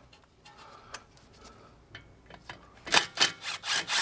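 Cordless ratchet with a 5 mm Allen bit backing out a bracket screw. A few light clicks come first, then from about three seconds in a rapid run of sharp strokes, about four or five a second.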